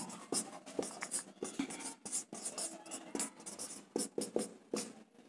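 Handwriting: a run of short, scratchy writing strokes with brief pauses between them, as an answer is written out.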